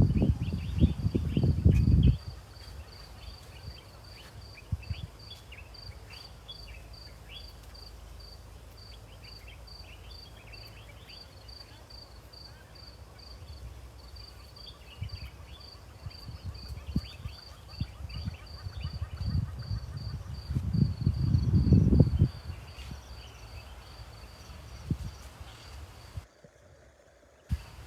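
An insect chirps steadily at a high pitch, about two chirps a second, with faint bird twittering around it. There is low rumbling noise for the first two seconds and again from about fifteen to twenty-two seconds in. The sound drops out briefly just before the end.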